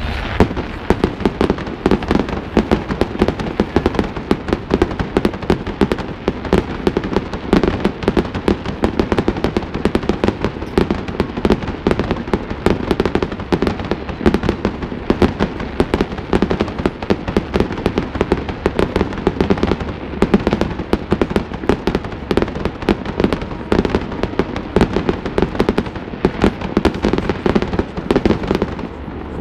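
New Year's Eve fireworks display: a continuous barrage of bangs and crackling shell bursts, many a second, without a pause.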